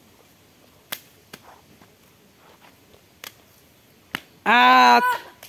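A few scattered sharp taps as bare hands and feet land on paper sheets laid on packed dirt, then near the end a voice calls out once in a short, held cry.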